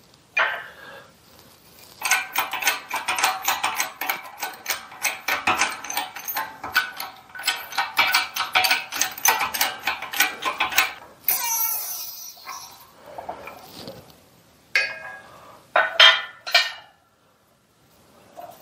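Shop press being worked to push a mini lathe spindle out of its headstock: a long run of rapid metallic clicking and clinking, then a few separate sharp clinks near the end. The spindle and bearing are starting to come out under the press.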